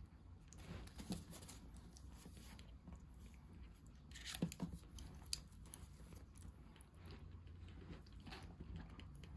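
Newborn kitten suckling formula from a nursing bottle: faint, repeated wet sucking and smacking, with a few louder smacks about halfway through.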